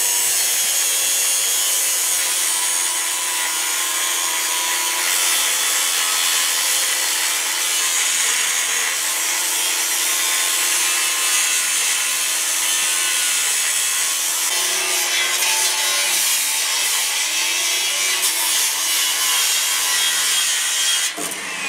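Angle grinder cutting through the square steel tubing of a shipping-crate cage: a steady, loud grinding hiss over the motor's whine. The motor note wavers about two thirds of the way through, and the grinding stops just before the end.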